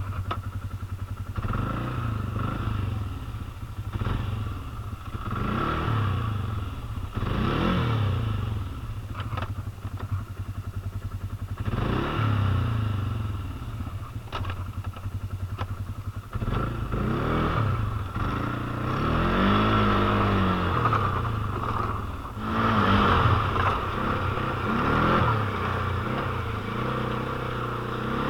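Can-Am ATV engine revving up and down over and over as the quad is ridden across rough, snowy, muddy ground, with knocks and rattles from the machine.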